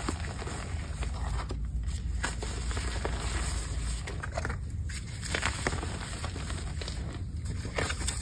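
Hands crushing and crumbling soft, delicate pieces of baked Bon Ami and cornstarch chalk into loose powder, with many small crackles and soft crunches and a few short pauses.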